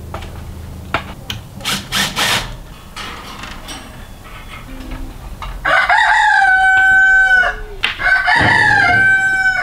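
Rooster crowing twice in the second half, each crow held steady for about a second and a half to two seconds. Before the crows there are a few short clattering knocks.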